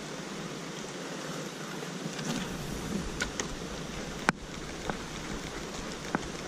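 Light rain falling on the surface of a muddy stream: a steady hiss of drops, with a few sharper single drop hits here and there.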